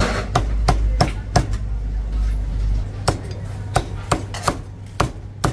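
A steel cleaver chopping crispy-skinned roast pork belly on a wooden chopping block: about eleven sharp chops at an uneven pace, with a pause of a second or so in the middle.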